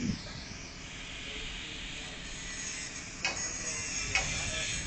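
Wind buffeting the microphone in a low, uneven rumble, with two sharp knocks about three and four seconds in.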